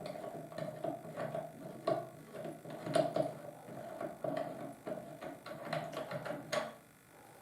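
Irregular metallic clicking and scraping, with a faint ringing, as the muzzle device is worked off the rifle's threaded barrel. It stops near the end.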